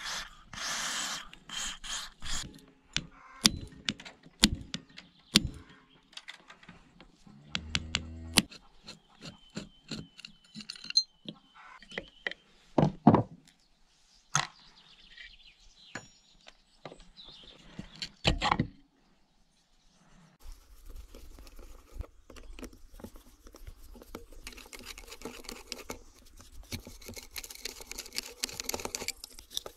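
An aerosol spray hisses briefly at the start. Then come a run of sharp metal clinks and knocks of hand tools and engine parts on a wooden table as a small two-stroke engine is taken apart. From about two-thirds of the way through there is a steady scratchy rustle while a screwdriver works the crankcase screws.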